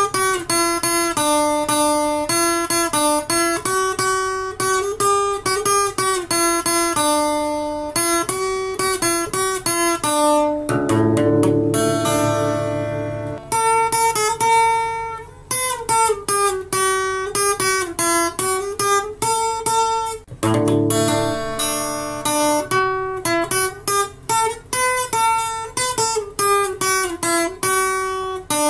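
Instrumental background music on plucked strings, like an acoustic guitar, picking a quick melody, with heavier strummed chords twice along the way.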